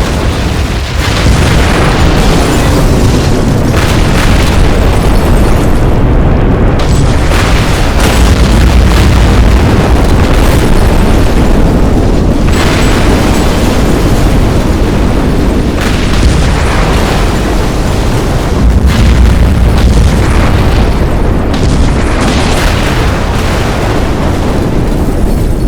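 Bomb explosion sound effect: a dense, continuous run of blasts over a deep rolling rumble, with a fresh blast breaking in every few seconds.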